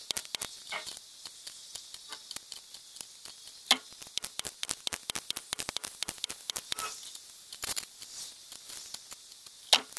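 Remington Airacobra .177 PCP air rifle firing a sharp shot about four seconds in, with a fainter crack near the end, over a steady fast crackle of small clicks.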